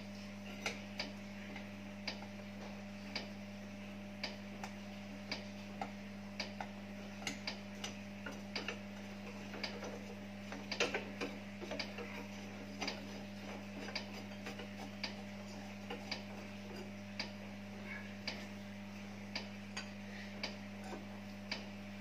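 Irregular light metallic clicks, with a short burst of rattling about ten seconds in, as a nut is spun by hand down a threaded rod that bolts a milling machine's base to a timber block. A steady low hum runs underneath.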